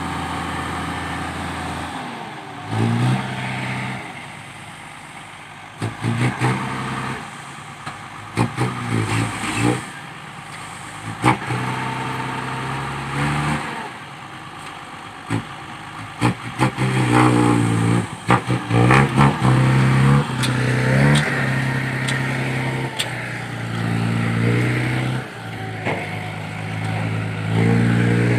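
Hino dump truck's diesel engine revving in repeated rising and falling surges while the tipper bed is raised to dump sand and the truck then moves off. Scattered knocks and clatter come through between the surges.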